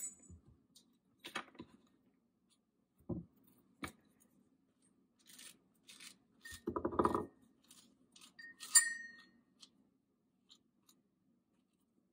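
A spoon scraping seeds and stringy pulp out of a halved squash into a stainless steel bowl, with scattered soft scrapes and taps. Past the middle comes a dull thump, then a sharp metallic clink with a brief ring.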